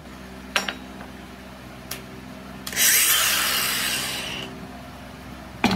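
DeWalt cordless angle grinder running with a steady motor hum. About three seconds in, its cut-off wheel bites into steel for a second and a half, a loud grinding hiss that fades as the cut ends. A sharp clunk comes near the end.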